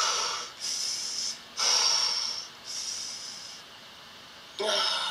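A pregnant woman breathing through a labor contraction: quick, hissing breaths about a second apart, four in a row, a pause, then another near the end.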